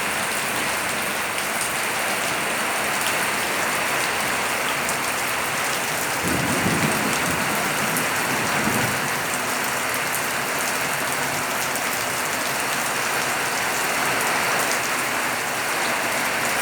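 Steady heavy rain falling and pattering on surfaces, with a brief low rumble about six seconds in and a fainter one a few seconds later.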